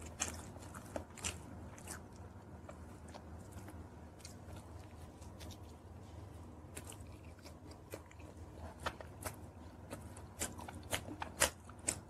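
Close-miked eating: pizza crust being bitten and chewed, with many short, crisp crunches that come more often near the end. A low steady hum runs underneath.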